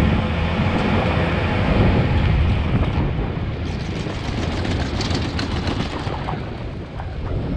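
Skis sliding and scraping over firm, hard-packed groomed snow, the scratchy edge noise strongest from about four to six seconds in, under a steady low rumble of wind on the microphone.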